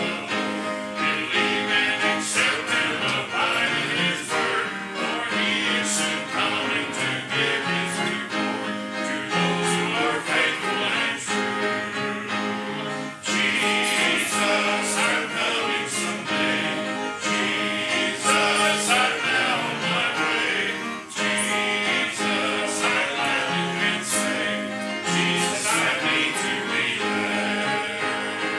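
Gospel music: voices singing over instrumental accompaniment.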